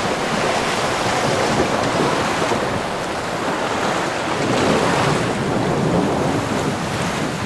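Steady rush of sea water and waves streaming past a sailboat's hull under sail in rough conditions, with wind buffeting the microphone.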